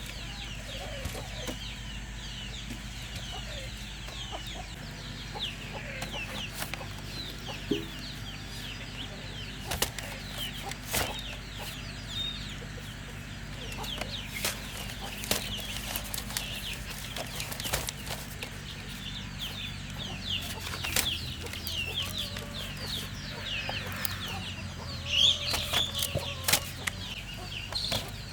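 Chickens clucking, with many short high chirps throughout and sharp knocks now and then; the calls are busiest and loudest a few seconds before the end.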